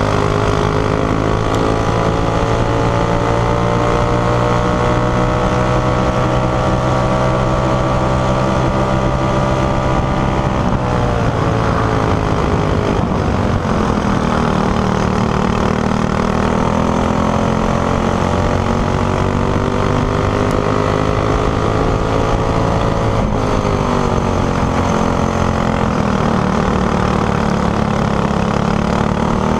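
Racing kart engine under hard throttle, its pitch climbing steadily as the kart accelerates, then falling sharply as the driver lifts for a corner about eleven seconds in and again about 23 seconds in, climbing again after each.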